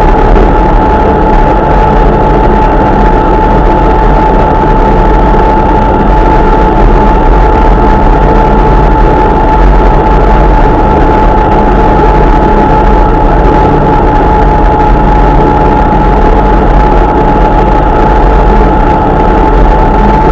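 Engine and road noise heard from inside a World War II-era military vehicle driving at a steady speed: a loud, constant drone with a steady high whine over it.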